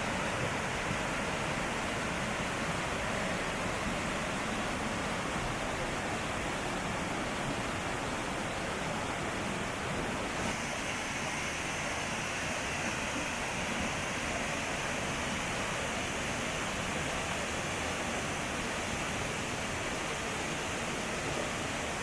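Rushing water of a mountain stream cascading over boulders, a steady rush. About ten seconds in the sound takes on a brighter hiss.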